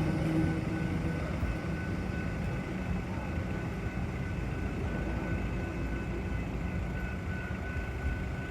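Steady low vehicle rumble with a faint, steady high-pitched whine above it.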